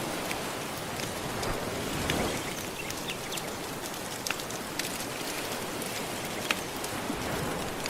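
Soft ocean waves washing steadily, with a wood fire crackling over them in sharp pops about once or twice a second.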